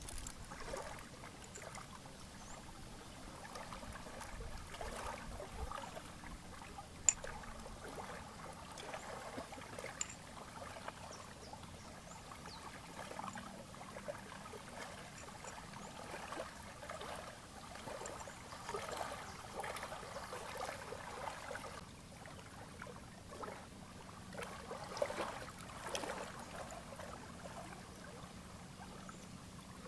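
Small waves lapping and trickling at the lake's edge in uneven swells, with a few sharp clicks; the sharpest is about seven seconds in.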